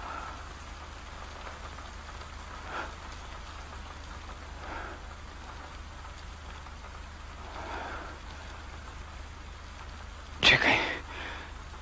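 Steady rain falling, an even hiss under a faint low hum. A short, louder burst cuts in about ten and a half seconds in.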